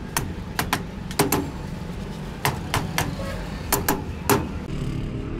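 A series of about ten sharp knocks and taps at irregular spacing, some in quick pairs, over a steady low hum.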